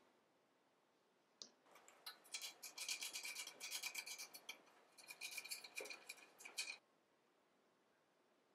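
Threaded brass rotor caps on a French horn being twisted by hand, the metal threads grating in two short bouts of fast, gritty scraping.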